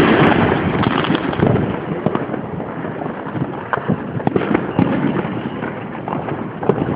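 Fireworks going off: a dense, continuous crackle of many overlapping pops and bangs, loudest at the start.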